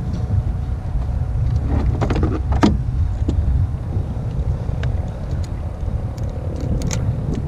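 Wind rumbling steadily on the camera microphone, with a cluster of knocks and clicks about two seconds in and a few more near the end from the fish and gear being handled on the kayak.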